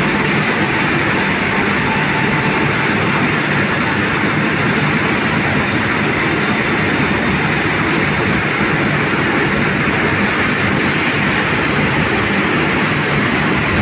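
Steady, loud mechanical din of a steel factory hall, even and unchanging, with a faint high tone that comes and goes.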